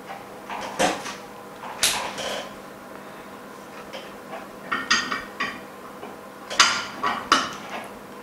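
Clicks and knocks of a phone's LCD and base frame being handled and set into a laminating machine's mold: a few separate sharp taps, a quick run of rattly clicks about five seconds in, and two louder knocks near the end, over a faint steady hum.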